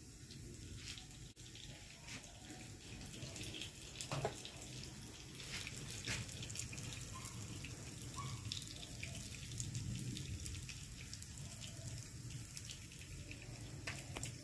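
Fish tails frying in hot oil in a pan: a low, steady sizzle with scattered small pops and crackles.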